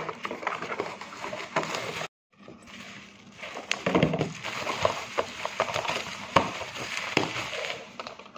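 Plastic and cardboard packaging being handled and opened by hand: rustling with many small clicks and taps, broken by a brief cut to silence about two seconds in.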